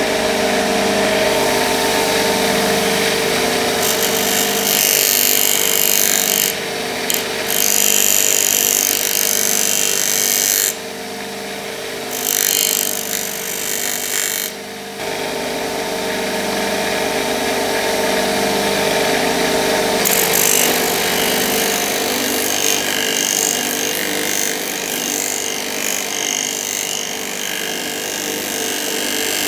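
Bench grinder running with a maroon abrasive wheel as the metal end cap of a knife handle is pressed against it to refinish it. A steady motor hum runs under a rasping grinding hiss from the contact, which drops out briefly about eleven seconds in and again near fifteen seconds as the piece is lifted off.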